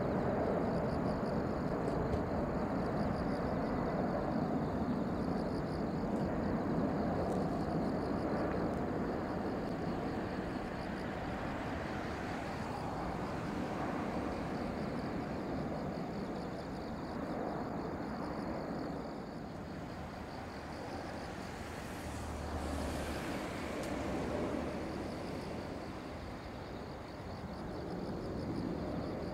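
Boeing 747-8F freighter's four GEnx turbofans at climb power: a steady low jet rumble that slowly fades as the aircraft climbs away.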